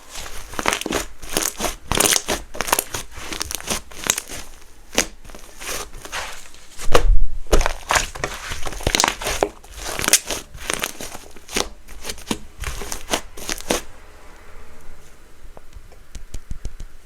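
Soft clay-mixed glue slime being squished and stretched by hand, giving a quick run of sticky pops and clicks that stops about three seconds before the end.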